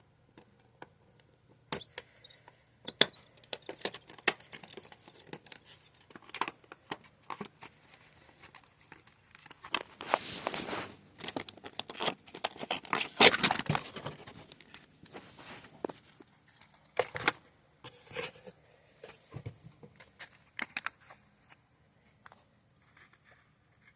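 A package being opened by hand: scattered clicks and taps of handling, with bursts of tearing and crinkling packaging, loudest about halfway through.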